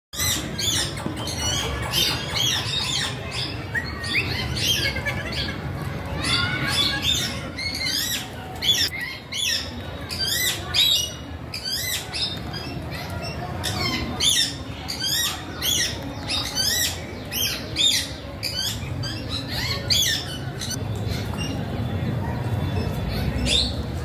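A flock of parakeets, rose-ringed and Alexandrine, calling with shrill, harsh squawks about twice a second. The calls thin out near the end, over a low steady rumble.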